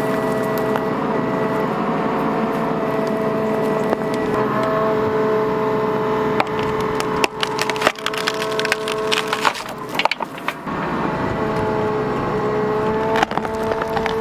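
Bobcat mini excavator running under load with a steady whine while the tree's wood and roots crack and snap as it is torn out. A cluster of sharp cracks comes from about seven to eleven seconds in, and more come near the end.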